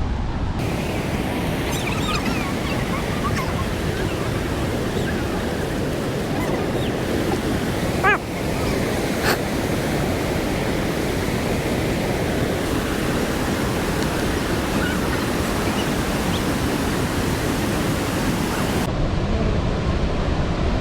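Steady roar of a large waterfall on the Kaveri River, with a brief knock about eight seconds in.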